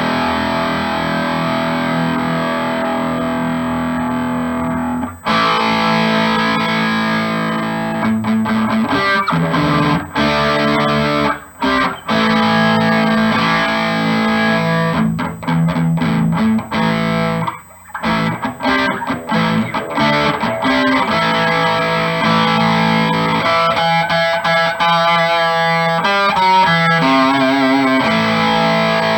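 Electric guitar through an amp, played on a Seymour Duncan Little '59 mini humbucker in the bridge position of a G&L Legacy Tribute, with the treble set to about 6. A chord rings on for about five seconds, then he plays phrases with short breaks between them.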